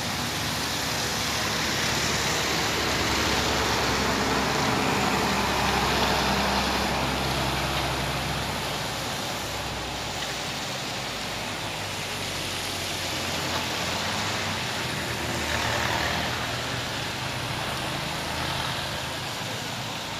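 Road traffic passing on a wet road: a bus's engine and the hiss of tyres on wet asphalt swell over the first several seconds and then fade, and more vehicles come by later, swelling again a few seconds before the end.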